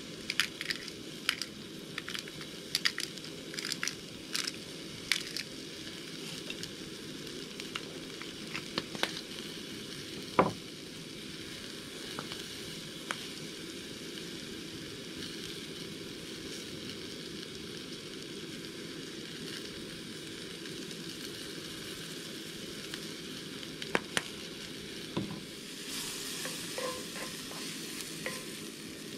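Food frying in a cast iron skillet on a Coleman gas camping stove: a steady sizzle, with frequent pops and crackles over the first ten seconds and one loud pop about ten seconds in. Near the end come a couple of knocks and the food being stirred in the pan.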